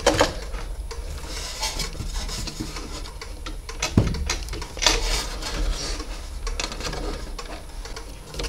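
PC cables and a plastic connector being handled and pushed at a motherboard socket inside a computer case: rustling with scattered clicks and knocks, the sharpest about four and five seconds in. The connector is not seating.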